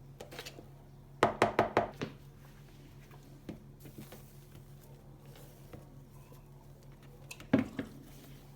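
A quick run of about five knocks about a second in, then a single knock near the end, over a steady low hum.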